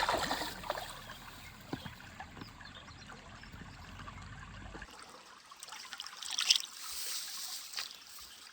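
Water splashing and trickling, with a louder splash at the start and another about six and a half seconds in, and scattered small clicks between.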